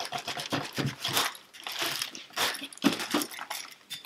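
Plastic packaging wrap crinkling and rustling as it is cut and pulled off with a knife, in irregular short bursts.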